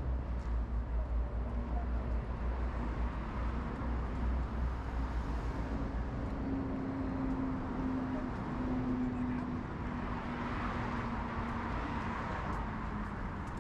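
Road traffic on a wide city boulevard: a steady low rumble of engines and tyres, with a held engine hum through the middle and a passing vehicle's swell of tyre noise near the end.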